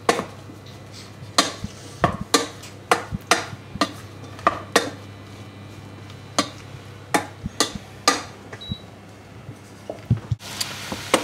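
Wooden spoon knocking and scraping against a stainless steel saucepan as sliced mushrooms are stirred in melted butter: irregular clacks, some in quick runs of three or four.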